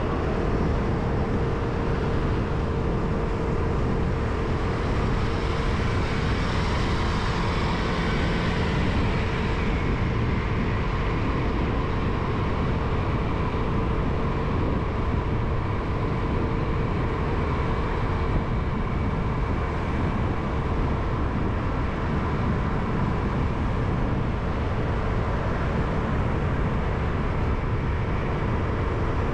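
Steady road and traffic noise from travelling along a city street, with a steady low hum.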